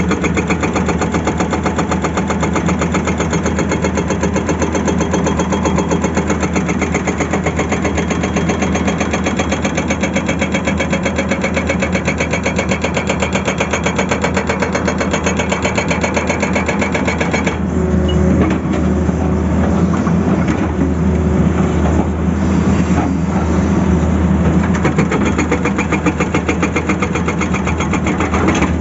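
Tata Hitachi excavator's diesel engine running, with a fast, even pulsing. About two-thirds of the way through, the sound changes and the upper hiss drops away.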